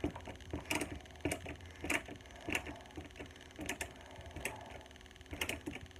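Hand screwdriver being turned on a screw in a block knife sharpener's mount: a string of sharp clicks, roughly one every half second to second.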